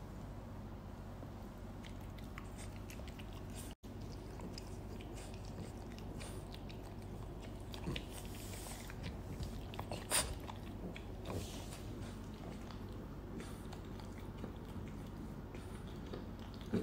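Two French bulldogs play-biting and mouthing each other, with small scattered clicks and smacks, a few louder ones in the second half, over a steady low hum.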